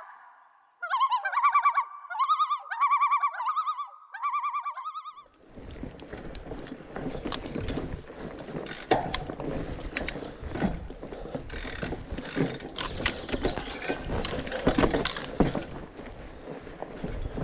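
A short melodic phrase of warbling, repeated pitched notes that stops about five seconds in. Then a mountain bike rolling along a forest singletrack: tyre and trail rumble with many ticks, clicks and rattles from the bike.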